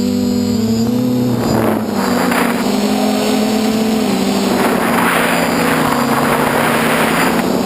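DJI F450 quadcopter's four motors and 8-inch propellers humming steadily in flight, with the pitch shifting slightly a few times as the motor speed changes. Several swells of rushing air are heard over the hum.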